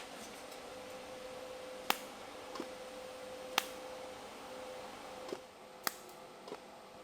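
TIG welding on a thin steel patch panel: a faint steady hum with a handful of sharp ticks scattered through it.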